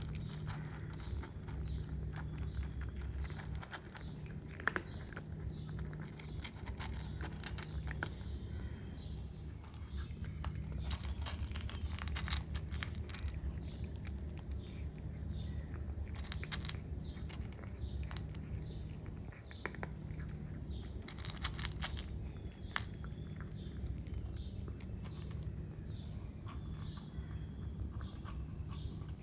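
A cat eating, chewing and crunching its food in many short, sharp clicks, over a low rumble that pulses on and off every second or two.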